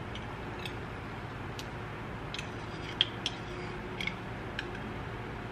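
A metal spoon clicking and scraping against a glass jar of chili crunch as it is scooped out: a string of light, sharp clinks, the loudest about three seconds in.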